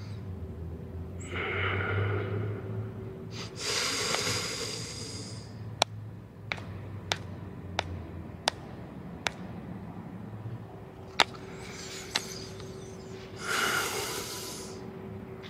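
A man breathing out heavily twice, then a series of sharp separate clicks, about one every half second to second, as he taps on a smartphone screen, and another heavy breath near the end.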